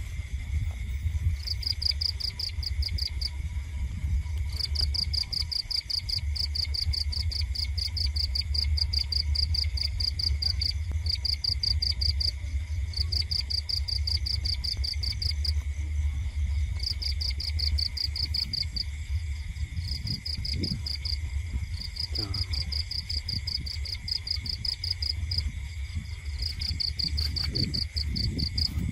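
Night insects trilling in rapid pulsed phrases two to three seconds long with short breaks, over a steady high-pitched insect drone. A constant low rumble runs underneath.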